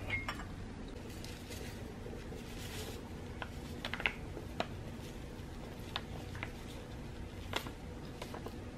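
Glassware being handled and cocoa powder being poured from a paper packet into a glass mug: small clicks and taps, packet crinkles and a soft rustling hiss, over a steady low hum in the room.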